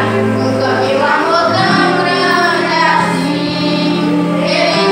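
Children singing a Christian praise song with instrumental accompaniment.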